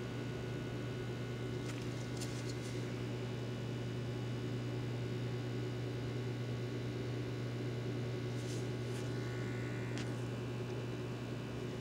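Steady low electrical hum, even and unchanging, with a few faint clicks about two seconds in and again near the end.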